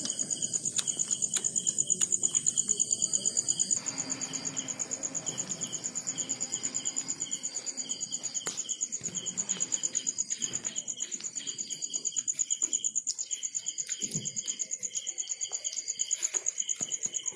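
Night insects trilling in a high, fast, steady pulse, with a second, higher trill that drops out about four seconds in.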